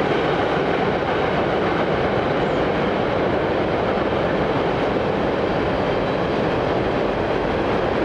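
Railroad cars rolling past on the rails: a steady, even noise of wheels on track, with no horn and no let-up.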